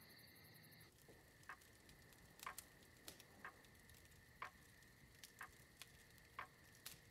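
Near silence: quiet room tone with a faint steady high hum and faint, irregularly spaced soft clicks and ticks.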